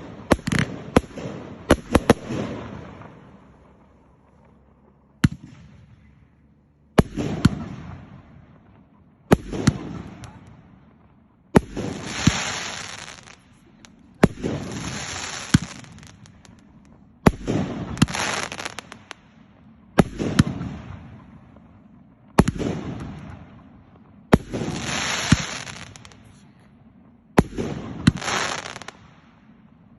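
Aerial fireworks bursting: a quick cluster of bangs at the start, a short lull, then single sharp bursts about every two to three seconds, each trailing off in a fading hiss and crackle.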